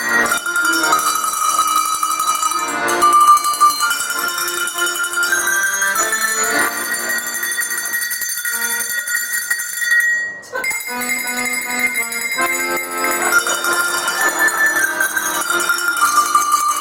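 A melody played on a set of tuned cowbells with accordion accompaniment, the bells ringing over held accordion notes, with a short break about ten seconds in.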